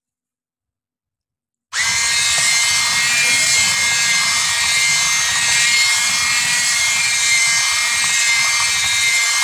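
Electric hand mixer running at a steady speed, its beaters churning thick carrot cake batter in a plastic bowl; the loud, steady motor whine starts suddenly nearly two seconds in.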